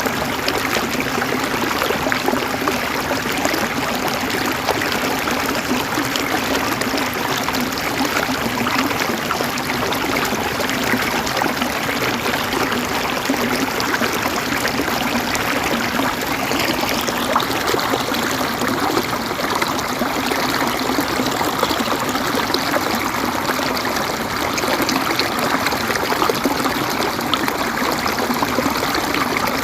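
River water flowing and gurgling over stones in a steady, even rush.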